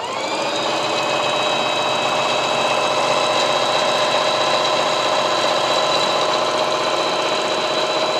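Singer electric sewing machine running steadily while sewing a scallop stitch, its motor whining up to speed in the first half second, then holding a steady whir and needle clatter.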